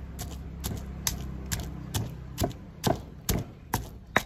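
Knife chopping on a cutting board in a steady rhythm, about two sharp strokes a second.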